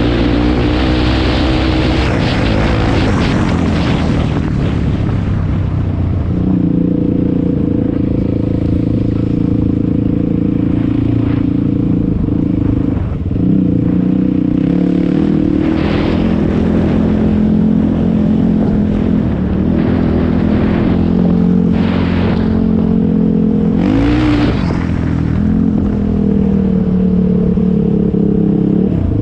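A sport ATV's 450 single-cylinder four-stroke engine running under way at a steady cruise. The pitch holds mostly level, with a brief dip about halfway through and a quick rise as the throttle is opened near the end. A rushing noise mixes in over the first few seconds.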